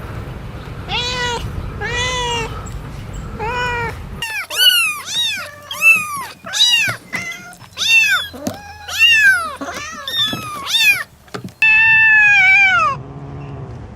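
Domestic cats meowing: three evenly spaced meows over a low rumbling background noise, then a rapid run of short high-pitched meows, about two a second, and one long drawn-out meow near the end.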